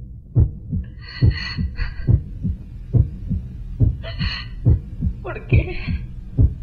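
Heartbeat sound effect: low double thumps, lub-dub, in a steady rhythm of just over one beat a second. Short higher-pitched bursts sound over it several times.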